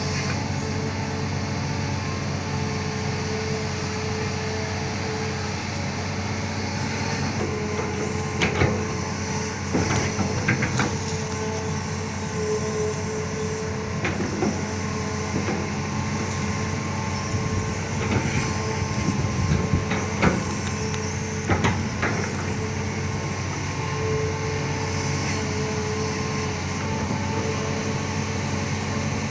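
Amphibious excavator's diesel engine running steadily, with a scattering of sharp metallic knocks and clanks from the working machine between about eight and twenty-two seconds in.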